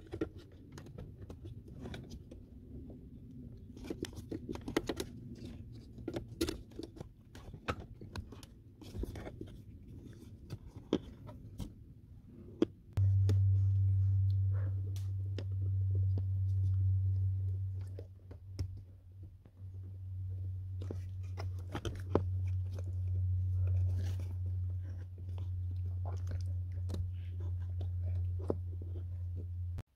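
Plastic clicking and scraping as the defroster flap actuator motor is worked loose among the wiring harness and its connector is pried apart with a screwdriver. About halfway through a loud, steady low hum starts suddenly and keeps going under the clicks.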